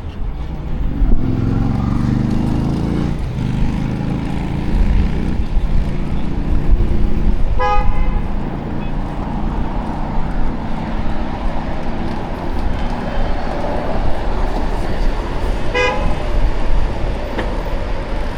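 City traffic noise with a steady low rumble and a vehicle engine passing in the first few seconds. A vehicle horn gives two short toots, one about a third of the way in and one near the end.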